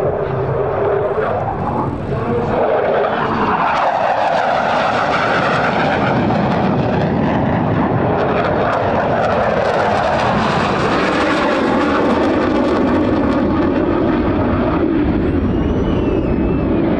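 F-16 Fighting Falcon fighter jet in flight: the loud, continuous rush of its single jet engine, growing louder about two seconds in, its tone sweeping slowly up and down as the jet moves across the sky.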